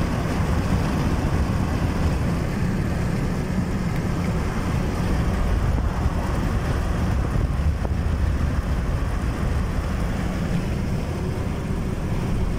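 Gusty wind and road noise heard inside the cabin of a Ford Focus 3 wagon with a roof box at about 90 km/h: a steady, deep rushing.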